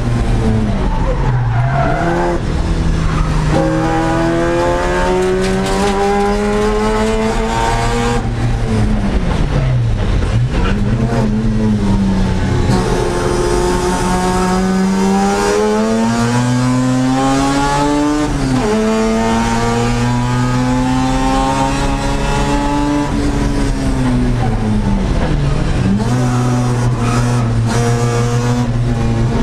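1982 Mazda RX-7's 13B rotary engine at race pace, heard from inside the cabin. The revs climb steadily for several seconds at a time, then fall back and dip sharply about four times as it shifts and slows for corners.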